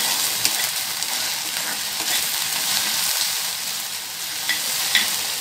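Chopped okra sizzling as it stir-fries in oil in a kadai, with a metal spatula scraping the pan and giving occasional light clicks.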